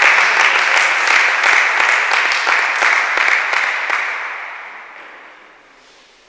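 Spectators applauding a point in a table tennis match: dense clapping that holds for about four seconds, then fades away over the next two.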